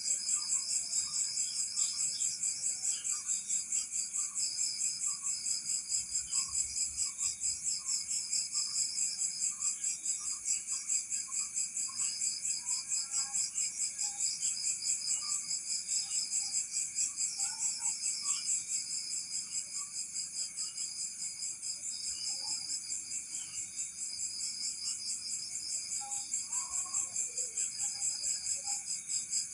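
Insect chorus, a steady high-pitched trill pulsing rapidly without a break, with faint scattered short calls lower down.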